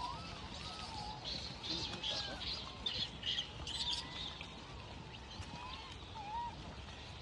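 A troop of wild macaques calling: many short chirps, squeaks and coos overlapping, busiest and loudest in the middle few seconds.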